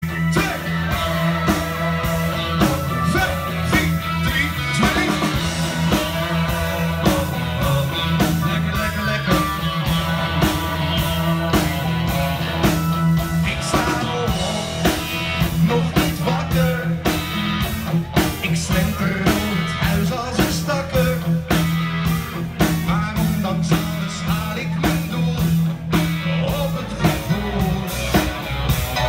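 Live band playing an upbeat song through a PA system: drum kit, bass and keyboard, with a male singer singing into a handheld microphone.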